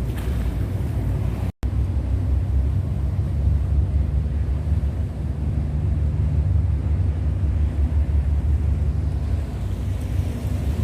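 Wind buffeting the microphone: a steady low rumble, cut off for an instant about one and a half seconds in.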